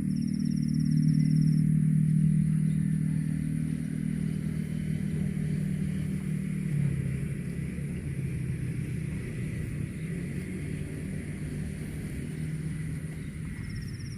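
An engine running steadily with a low hum, dropping in pitch about seven seconds in and slowly fading.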